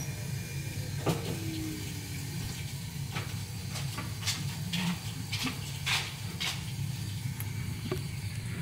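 Scattered clicks, knocks and brushing noises from someone walking up and handling the camera, over a low steady hum.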